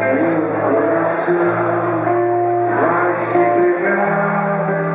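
Live solo performance: a man singing to his own nylon-string classical guitar, heard through a club's sound system.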